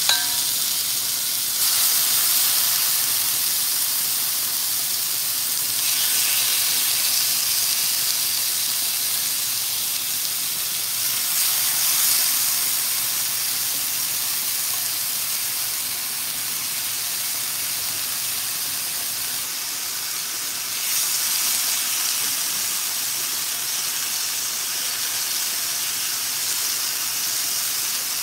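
Lamb chops sizzling as they sear in a hot cast-iron skillet: a steady frying hiss that flares up louder several times as more chops are laid into the pan.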